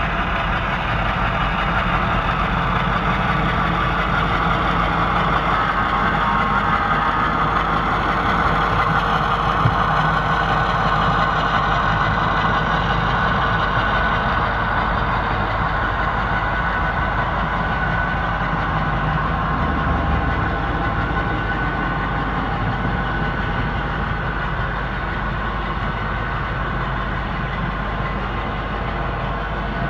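HO scale model diesel train running steadily past: the locomotive's engine sound, with its hopper wagons rolling on the track.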